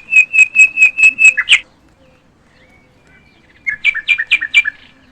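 A songbird singing two phrases: the first a rapid run of about seven sharp, evenly repeated notes ending in a quick flourish, the second, about two seconds later, a shorter, faster burst of repeated notes.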